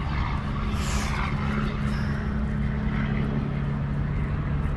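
Steady low mechanical hum over a continuous wash of outdoor traffic-like noise, with a brief rustle about a second in.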